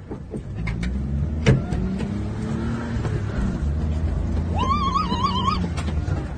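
A car's engine running, heard from inside the cabin, with a sharp knock about a second and a half in. Near the end comes a wavering, high-pitched cry lasting about a second.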